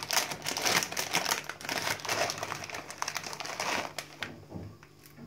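A crinkly plastic packet being handled and rustled, a dense crackling that dies away about four seconds in.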